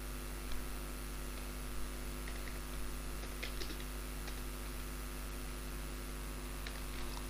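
Computer keyboard keys pressed one at a time, a few scattered clicks with pauses between them, over a steady electrical hum.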